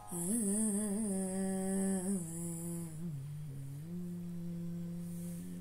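A singer humming the close of a Tamil devotional verse in Carnatic style, without words. A few quick wavering ornaments come in the first two seconds, then a brief dip lower about three seconds in, then one long steady held note.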